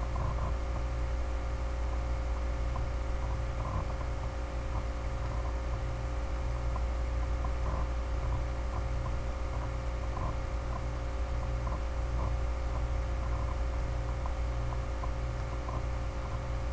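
Steady electrical hum with a faint hiss, from the recording setup, with faint, soft ticks scattered irregularly throughout.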